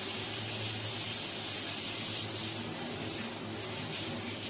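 Steady hiss with a low hum underneath: constant background noise with no distinct events.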